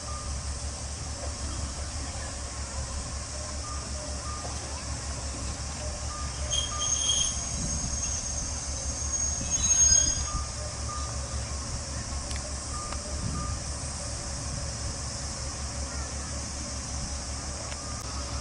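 Diesel railcars idling at a station: a steady low engine rumble with a regular throb. A high shrill tone swells up in the middle and peaks about ten seconds in.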